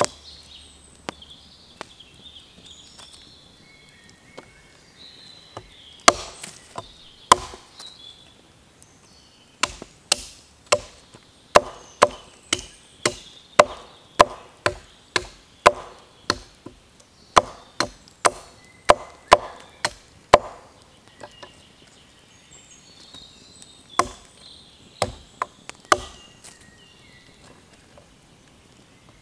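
Small hatchet and knife chopping thin sticks against a log: sharp wooden chops, sparse at first, then about two a second from about six to twenty seconds in, with a few more after a pause near the end. Birds chirp faintly in the quieter stretches.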